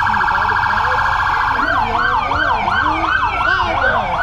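Police car's electronic siren sounding close by: a very fast warble that switches about a second and a half in to a yelp, sweeping up and down about three times a second.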